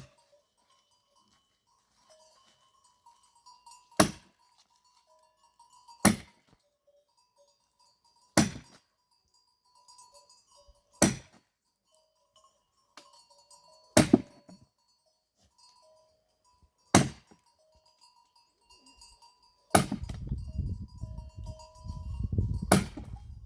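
Axe blows chopping firewood: single sharp strikes every two to three seconds, about eight in all. A low rumbling noise comes in near the end.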